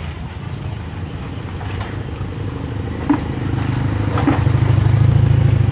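An engine running steadily, swelling louder over the last couple of seconds, with one sharp click about three seconds in.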